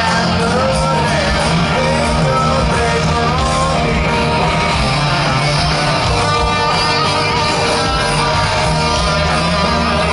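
Heavy metal band playing live: electric guitar, bass and drums, with a man singing over them.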